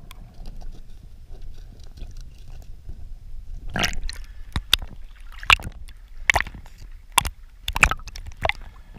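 Sea water sloshing and gurgling around a camera bobbing half-submerged at the surface, over a low muffled rumble. From about four seconds in come short sharp splashes, roughly one a second.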